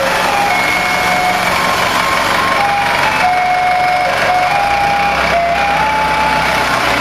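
A simple electronic tune of clear single notes stepping up and down, like a warning jingle, plays over a steady din of factory machinery. A low hum comes in about two-thirds of the way through.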